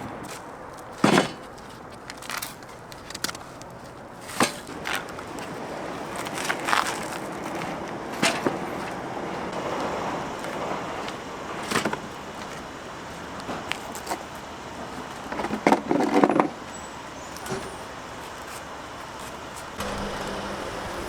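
Scattered sharp knocks and clatters over a steady background noise, the loudest about a second in and a quick cluster of them near three-quarters of the way through.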